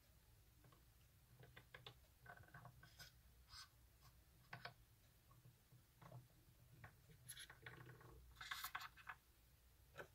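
Faint, scattered light clicks and short scrapes of fingers handling metal chess pieces on a glass-topped board, with a slightly longer scrape near the end.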